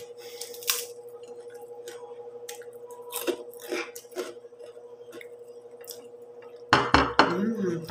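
Crunchy chicharon (fried pork rind) being broken apart by hand and chewed: scattered short crackles and chewing sounds, with a louder cluster of crunching about seven seconds in.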